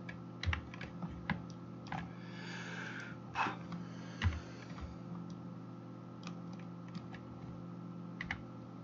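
Scattered clicks of a computer keyboard and mouse, irregular and a second or so apart, over a steady low electrical hum, with a brief rustle about two and a half seconds in.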